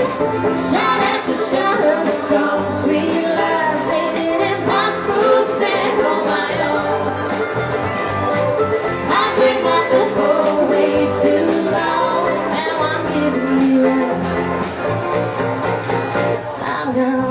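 Live country band playing: acoustic guitar, mandolin, electric bass and drum kit together in a steady groove.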